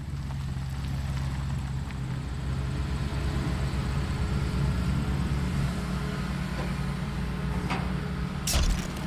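A motor vehicle's engine running steadily with a low, even hum. A single sharp impact sounds near the end.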